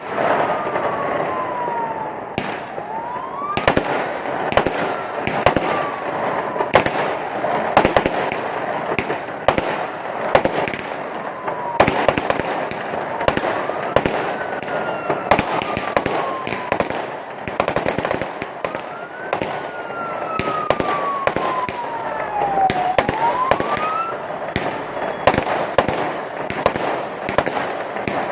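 Fireworks and firecrackers going off: a dense, continuous crackle broken by many sharp bangs. Throughout, a whistling tone slides slowly down and then quickly back up, several times.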